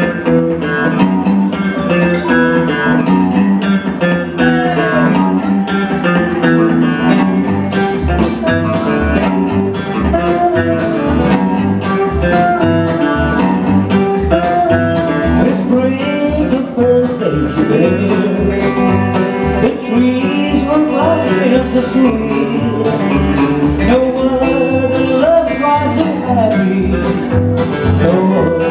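A live country band playing a song on fiddle, steel guitar, upright bass, acoustic and electric guitars. There are sliding notes and a steady low beat that comes in about a quarter of the way through.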